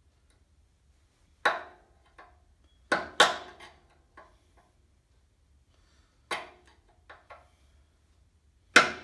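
Sharp metallic clanks with a brief ring, about half a dozen at uneven intervals, the loudest near the end. A long screwdriver is knocking against the steel brake backing plate and wheel cylinder of a 1947 GMC as the wheel cylinder retainer clip is pried off.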